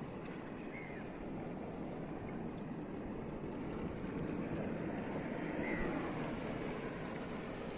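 Steady wash of shallow seawater lapping over a reef flat, mixed with wind on the microphone. Two faint short chirps are heard, about a second in and near the end.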